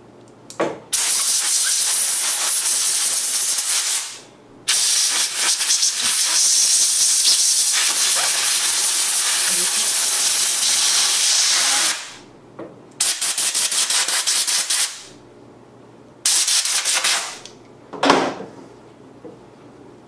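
Compressed-air blow gun hissing in repeated blasts as it blows out a folding pocket knife: a blast of about three seconds, a longer one of about seven seconds, then shorter, fluttering bursts that stop and start toward the end.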